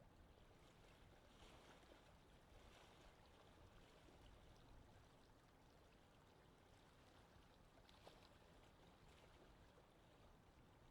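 Faint lake wind ambience: a steady low rush of wind with soft, scattered water laps.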